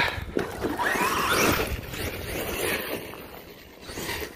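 Arrma Outcast 8S BLX brushless RC car accelerating away across grass. The electric motor whines and the tyres rip through the grass, loudest about a second in, then fading as the car drives off.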